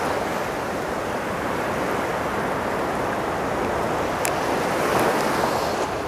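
Sea surf: rows of small waves breaking and washing onto the shore in a steady rush that swells a little about five seconds in.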